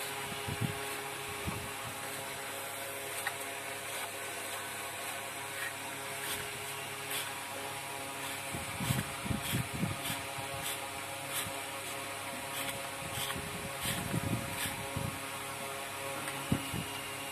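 Dull, soft thuds of a small cylindrical cutter pressed into a slab of wet clay to punch out discs, in clusters about halfway through and again near the end. Under them runs a steady machine-like hum with faint high ticks.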